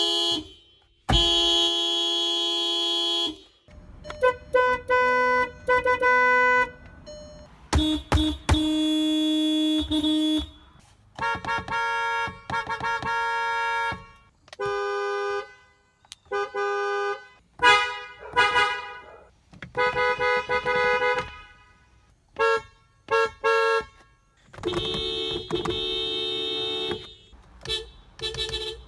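A series of car horns honking one after another, each with a different pitch: long held blasts mixed with runs of short, quick toots.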